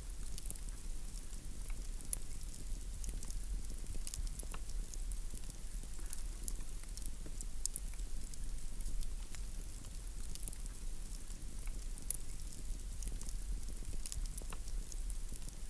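Steady crackle of scattered small clicks and pops over a low hum.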